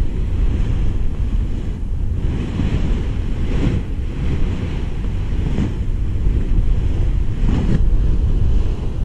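Wind buffeting the microphone: a loud, steady low rumble that swells with stronger gusts a few times.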